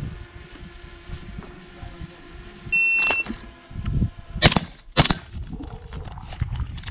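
A shot timer gives one short, high beep. About a second and a half later a rifle fires a double tap: two shots about half a second apart.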